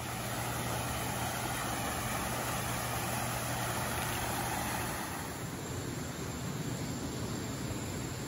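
Steady low mechanical hum over an even rushing noise; the hum and the rushing ease off about five seconds in.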